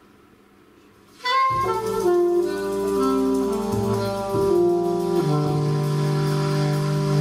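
Alto saxophone and trombone in a live jazz band come in loudly together about a second in, after a brief hush. They play a falling run of notes and then hold a long chord.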